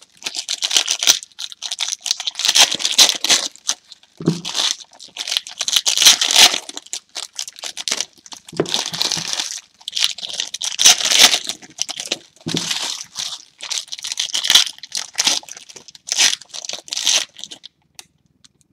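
Foil trading-card pack wrappers being torn open and crinkled by hand, in irregular bursts of rustling that stop shortly before the end.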